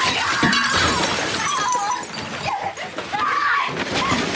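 A woman screaming over and over in agony, shrill cries that bend up and down, after her eye has been torn out. Crashes and clattering come in among the screams as she thrashes into things in a small bathroom.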